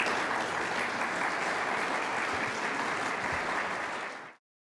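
Audience applauding steadily, then fading out quickly about four seconds in.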